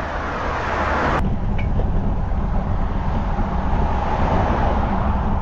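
Steady rushing noise with a low rumble underneath. It changes abruptly about a second in.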